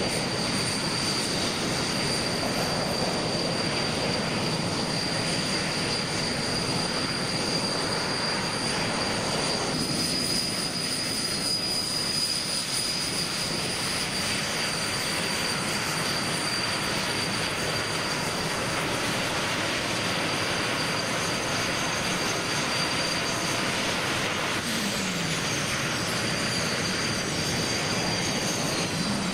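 Canadair CT-114 Tutor jets taxiing past, their single J85 turbojet engines whining steadily at taxi power over a broad rush of exhaust noise. The sound shifts slightly about ten seconds in and again near the end as different jets go by.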